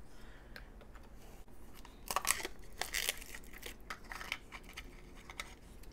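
Hands tearing and crinkling the small wrappers and tiny cardboard box of a Toy Mini Brands blind capsule. A few faint ticks at first, then bursts of rustling and tearing from about two seconds in.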